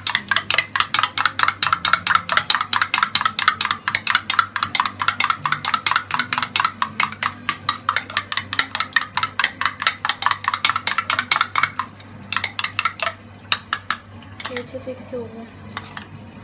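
Yogurt being beaten in a small bowl with a metal utensil: fast, even clicks of metal against the bowl, about seven a second. The clicking stops about twelve seconds in, comes back in two short runs, and starts again at the very end.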